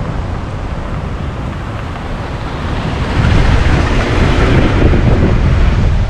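Wind buffeting a low-mounted action camera's microphone, with an SUV driving up over fresh snow; its tyres and engine grow louder from about halfway through as it passes right over the camera.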